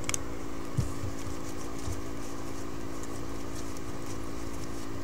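Paper trading cards being handled by hand, sliding and flicking against one another as a stack is fanned through, with a soft tap about a second in, over a steady low hum.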